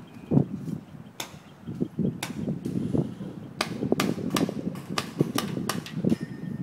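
Paintball markers firing: sharp pops, a few single shots in the first seconds, then quick irregular strings of shots from about three and a half seconds in, over a low rumble.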